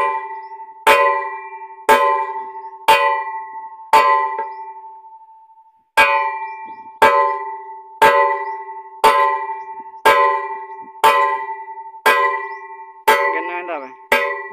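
Hammer blows on the end of a steel pipe, about one a second, each one ringing on with a clear metallic tone. There is a short pause after the fifth blow.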